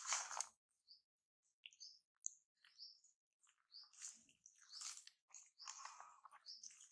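Faint, intermittent crunching and rustling of dry leaf litter as macaques move over it, with a few faint short high chirps about two seconds in.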